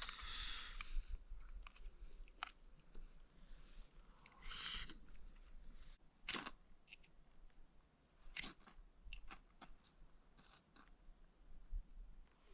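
Faint scattered clicks and short rustles, with a sharper click about six seconds in and a few quick clicks around eight to nine seconds.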